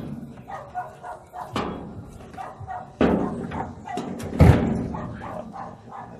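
Three sharp knocks on washing machine parts, about a second and a half apart, each ringing briefly, with the loudest near the end.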